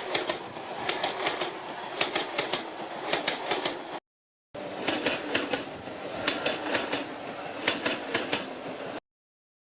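A passing train's wheels clattering over rail joints in repeated clusters of clicks over a steady rumble. The sound comes in two stretches of about four and a half seconds each, both cut off abruptly, with a brief silence between them.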